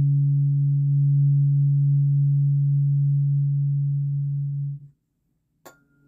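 Throat chakra tuning fork ringing with a steady low pure tone, which stops suddenly about five seconds in. A brief sharp click follows near the end.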